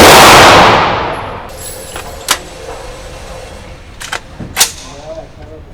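A single very loud rifle shot from an AR-15, with about a second of echoing tail. Three much fainter sharp gunshots follow about two, four and four and a half seconds in.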